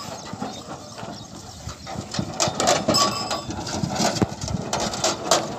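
Bullock cart loaded with granite stones rattling and knocking as a pair of bullocks pull it over rough ground, the clatter thickening about two seconds in, with a short ring about three seconds in.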